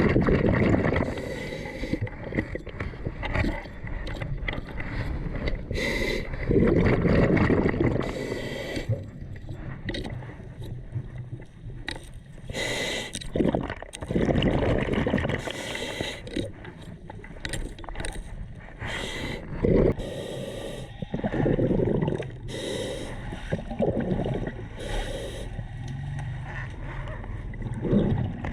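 Underwater sound around a diver: gurgling bubbles and breaths that swell every few seconds, with scattered sharp clicks and scrapes.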